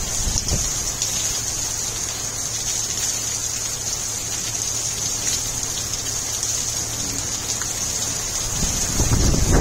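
Monsoon rain falling steadily on shrubs and ground, an even hiss. Wind buffets the microphone with a low rumble near the end.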